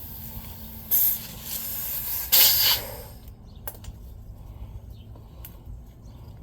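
Air hissing out of a mini bike tire's valve stem in two short bursts, about a second in and again at about two and a half seconds, with weaker hiss between: pressure being let off the tire after over-inflating it to seat the beads. A few faint clicks follow.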